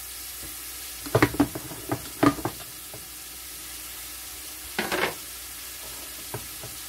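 Diced onion sizzling steadily in a stainless steel pan on a gas burner whose heat has just been turned down a little. A few short clattering knocks, about a second in, two seconds in and near five seconds, come from a lidded glass food container being handled on the counter.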